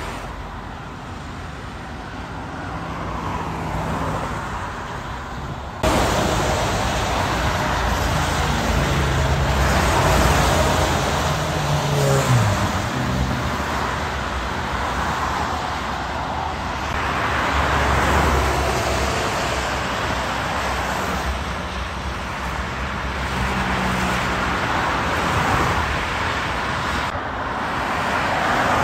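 Motorway traffic streaming past on a rain-wet road: a steady hiss of tyres under the hum of car and truck engines. The sound gets suddenly louder about six seconds in, and around twelve seconds one vehicle's engine note falls in pitch as it passes.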